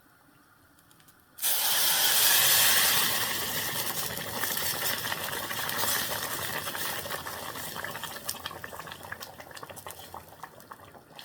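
Meat broth poured into a hot cooking pot of rice: a sudden loud hiss and crackle of steam about a second and a half in, slowly dying down.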